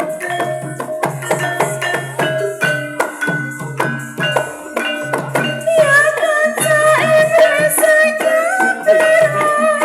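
Banyumas-style gamelan music accompanying an ebeg dance: struck keyed instruments play a busy run of short notes over a low, steadily repeating beat. About six seconds in, a wavering, held melodic line comes in above them.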